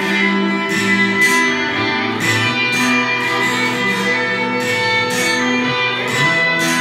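Guitar-led instrumental music with a steady beat, no singing.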